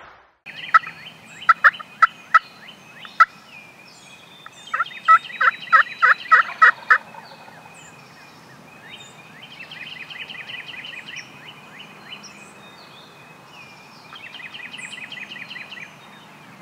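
Turkey calling: two runs of loud, sharp, repeated notes, about three or four a second, in the first seven seconds. Songbirds trill and chirp behind, with faster trills again near the middle and near the end.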